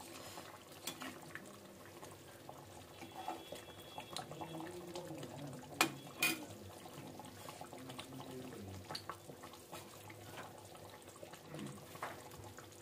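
Chicken korma gravy bubbling gently in a metal kadhai as a slotted spoon stirs through it, with two sharp clicks of the spoon against the pan about six seconds in.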